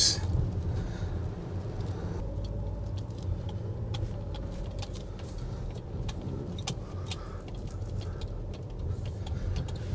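Inside an Audi Q5 while driving: steady low engine and road rumble, with scattered faint ticks.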